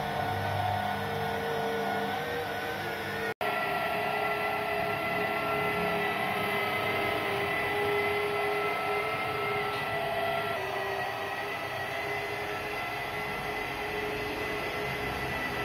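Electric car polisher running steadily while buffing paintwork: a machine whine with a few held tones. It cuts out for an instant about three seconds in, then resumes at a slightly different pitch.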